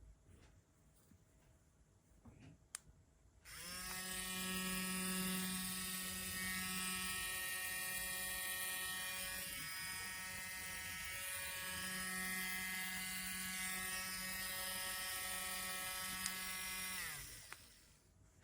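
Electric nail drill's small motor switched on a few seconds in, running at a steady high whine for about thirteen seconds, then winding down with falling pitch as it is switched off. A single click comes shortly before it starts.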